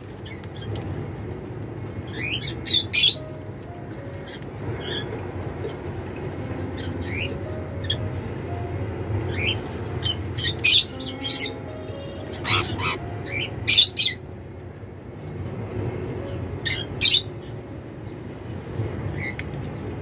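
Cockatiels chirping: short, sharp calls come in clusters now and then, a handful of times.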